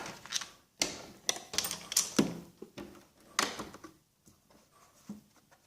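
Metal hand tools clinking and clattering as they are picked up and set down in a toolbox drawer: a run of irregular sharp clicks and knocks, thinning out near the end.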